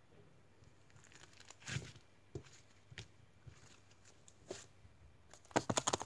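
Thick blue slime being pulled, stretched and squeezed by hand, with scattered sticky tearing and peeling sounds. A quick run of sharp crackling clicks comes near the end as it is squeezed in the fist.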